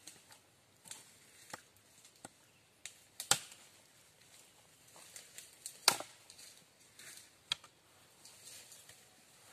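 Machete chopping and trimming a green sapling pole: a series of sharp, short knocks, with two much louder strokes about a third and about two-thirds of the way through and lighter cuts between.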